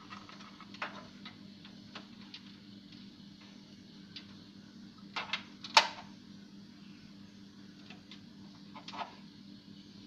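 Scattered light clicks and taps, with a few sharper knocks about five to six seconds in, the loudest just before six seconds, over a steady low hum.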